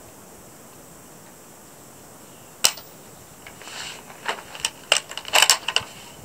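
A single sharp shot from a PTR-91 .308 semi-automatic rifle a little over two and a half seconds in, then, from about three and a half seconds on, a run of irregular metallic clicks and clatter as the rifle is handled.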